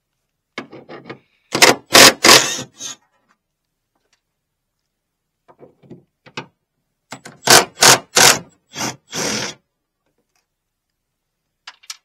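A hand ratchet and socket turning the rusty hood-hinge bolts of a 1986 Chevrolet Suburban, in two spells of short, loud, rapid strokes: the first about half a second in, the second from about five and a half seconds.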